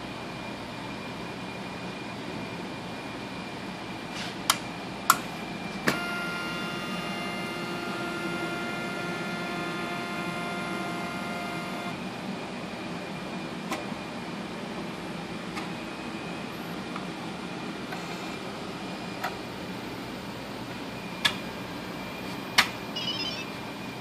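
CTC Analytics HTS PAL autosampler starting up: its arm's motors whine steadily for about six seconds as it moves, with sharp mechanical clicks before and after. A faint steady high tone runs under it all.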